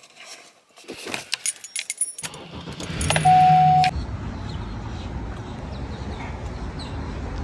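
Keys jangling and rattling for about two seconds, then a low steady rumble sets in. About three seconds in, a loud single steady tone sounds for under a second.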